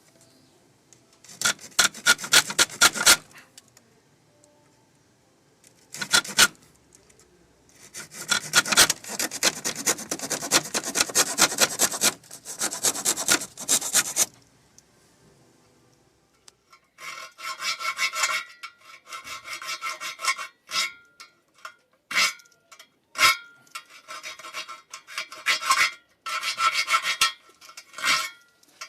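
Jigsaw blade fitted to a Leatherman Surge multi-tool, sawing by hand in bursts of quick back-and-forth strokes with short pauses between them. In the second half the strokes carry a ringing tone.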